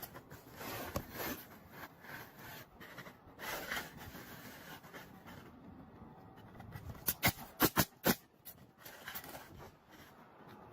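Roofing shingles being nailed down: a quick run of about five sharp knocks a little after the middle, after a stretch of faint rustling as the shingles are handled.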